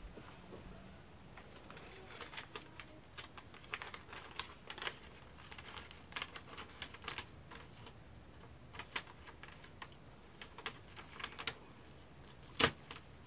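Sheet of paper crackling and rustling in the hands as it is taken out and unfolded, a run of short irregular crinkles with one sharper crackle near the end.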